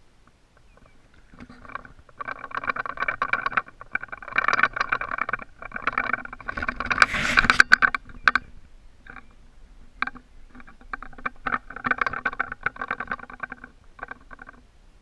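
A carp fishing reel's drag ticking very fast in repeated bursts of a few seconds as a big carp takes line against the bent rod. A louder rush of noise comes about seven seconds in.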